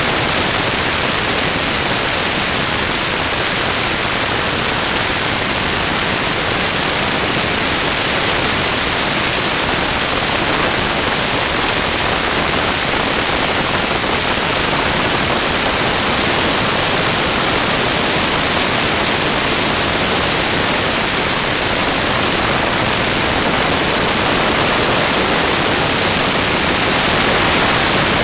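Helicopter in flight, heard as a loud, steady rush of rotor and engine noise with wind over the microphone.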